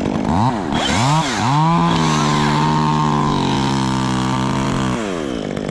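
Chainsaw engine blipped up and down three times in quick succession, then held at high revs for about three seconds before dropping back to idle near the end.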